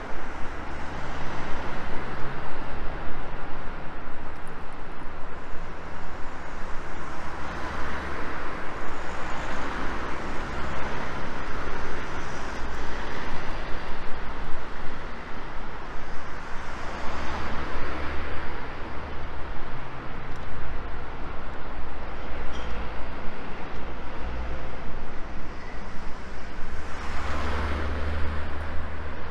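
City street traffic: a steady rumble of cars on the road, with vehicles passing and swelling up and fading away a few times, the loudest pass near the end.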